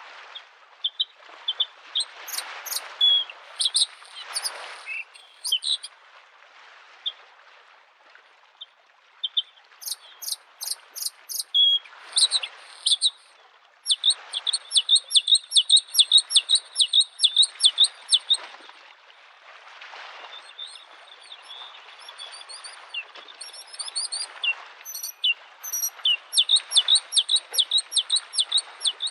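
A bluethroat singing: phrases of sharp, rapidly repeated high notes, including a long run of about four or five notes a second, while small waves wash against a lake shore and swell and fade every couple of seconds.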